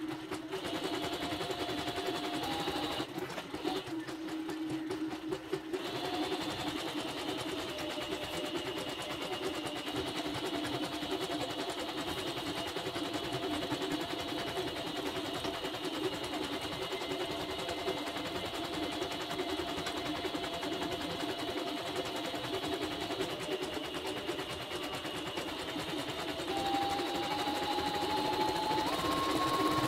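YOKO computerized embroidery machine running steadily, its needle stitching rapidly while the hoop carriage shifts the fabric, on a test run after servicing. Near the end the machine's tone steps a little higher and louder.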